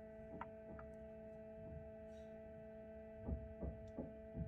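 Small egg incubator running with a steady, quiet hum, with several soft knocks from fingers handling its control panel and plugs, four of them close together near the end.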